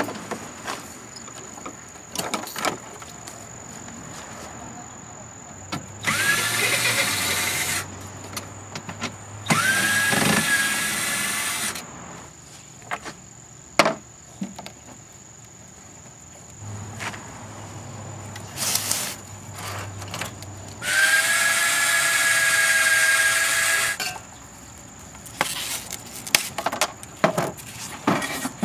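Power drill running in three bursts of a few seconds each, its motor whine rising as it spins up and then holding steady. Sharp knocks and clatter come in between.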